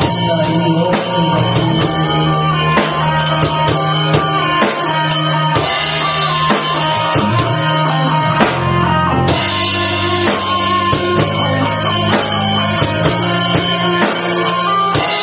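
Small rock band playing live in a room: drum kit, electric bass, electric guitar and acoustic guitar, with a male voice singing into a microphone in places.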